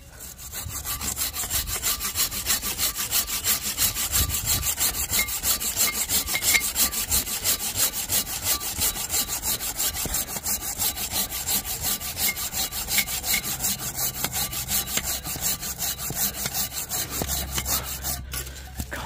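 Silky BigBoy folding pruning saw cutting smoothly through a hardwood tree trunk with quick, even push-pull strokes. The strokes stop suddenly near the end.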